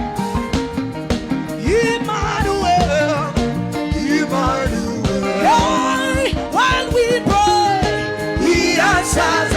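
Live gospel worship music: a solo singing voice with vibrato and melodic runs over a band's sustained chords and a steady drum beat.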